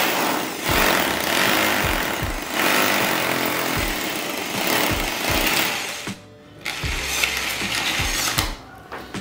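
Makita HR2630J SDS-plus rotary hammer drilling into a wall in hammer-drill mode, the bit turning while it hammers. The drilling pauses briefly about two-thirds of the way through, starts again, then stops near the end.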